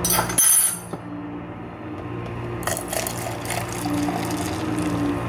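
A brief loud clatter at the start, then frothed milk poured from the steel jug of a Miroco electric milk frother into a plastic cup: a splashing, gurgling pour with small clicks, beginning about two and a half seconds in.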